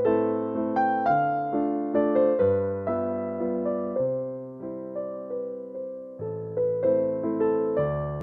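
Background music: a gentle electric piano playing sustained chords and a simple melody.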